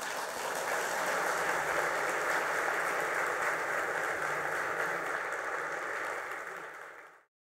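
Audience applauding, a steady mass of clapping that fades away near the end and then cuts to silence.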